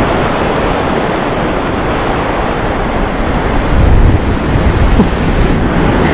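Ocean surf washing steadily onto a sandy beach, with wind buffeting the microphone in a low rumble that swells about four seconds in.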